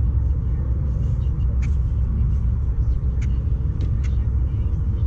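Steady low rumble of wind buffeting the microphone, with a few faint short ticks.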